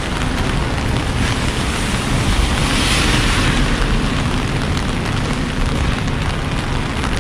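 Steady rushing noise of a rainy city street: rain and traffic on wet pavement, with a low rumble. A brighter hiss swells and fades about three seconds in.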